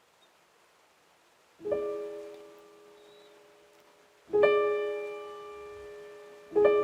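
Sampled piano from a Kontakt library, played from a MIDI keyboard: three chords, the first struck about a second and a half in and left to fade, the second about four seconds in, the third near the end.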